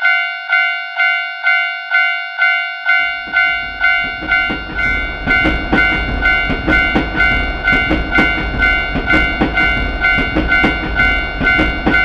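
Japanese level-crossing warning bell ringing steadily, about two strokes a second. From about three seconds in, a train passes through the crossing: a rumbling run with wheels clacking rapidly over the rail joints.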